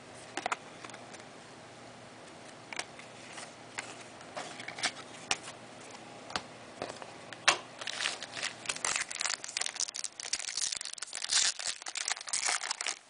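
Scattered light clicks and taps of trading cards being handled, then from about eight seconds in a dense crinkling and tearing of a card pack's plastic wrapper being ripped open.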